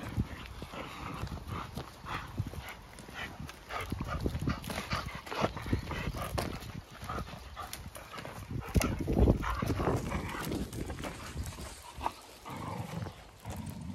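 Two dogs growling as they tug at a piece of timber held between their jaws while trotting together, with paws and footsteps crunching on gravel.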